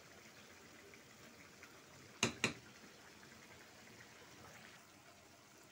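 Sauce simmering in a frying pan around two fish roe sacs, a faint steady bubbling. About two seconds in come two sharp knocks in quick succession.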